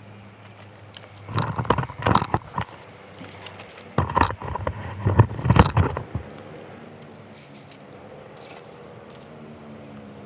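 Clattering and jangling of small hard objects in two spells, about a second in and about four seconds in, followed by a few lighter clicks.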